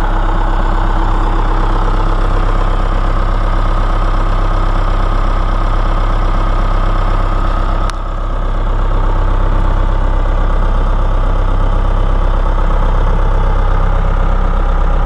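John Deere 190E excavator's diesel engine idling steadily, with a brief click and a short dip in level about eight seconds in.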